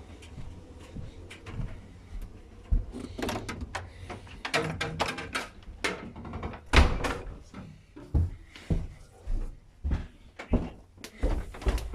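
A series of irregular knocks and thuds, like a door or lid being handled, with the loudest thud about seven seconds in.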